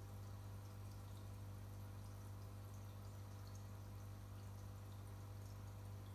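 Steady low hum of a marine aquarium's air pump, with small drips and bubbles popping at the water surface from the filter and aeration.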